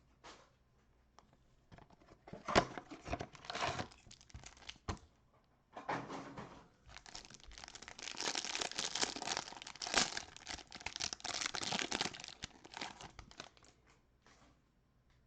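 A cardboard hanger box of trading cards being torn open and its packaging crinkled. There is a sharp tear about two and a half seconds in, then bursts of tearing, and from about seven seconds a long, steady stretch of crinkling until near the end.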